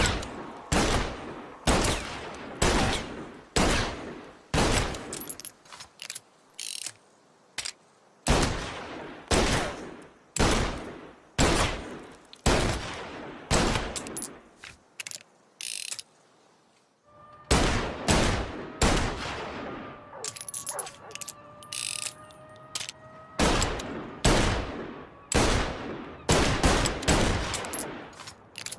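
Smith & Wesson Model 19 revolver firing shot after shot, about two dozen sharp reports roughly a second apart, each with a short ringing tail. A brief pause comes a little past the middle, followed by a few lighter metallic clicks with a faint ringing tone between the shots.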